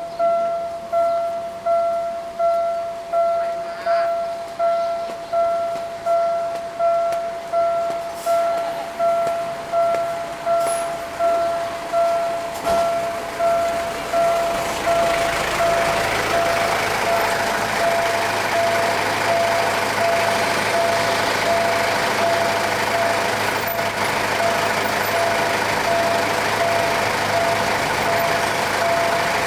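Railway level-crossing warning bell dinging at an even pace, nearly two strikes a second, at a crossing whose barrier has failed to lift after the train has passed. About halfway through, a loud steady rushing noise of passing traffic rises and all but covers the bell.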